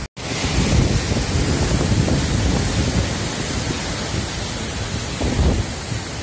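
Cyclone-force wind and heavy rain, the gusts buffeting the phone's microphone in surging low rumbles.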